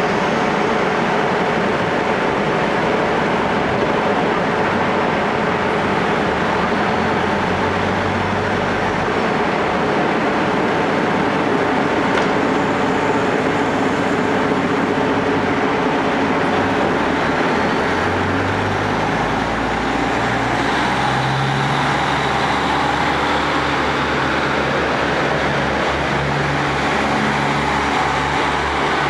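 Diesel engines of a KiHa 40 and KiHa 48 railcar train running steadily at idle, then throttling up about two-thirds of the way through as the train starts to pull out, the engine note rising and pulsing.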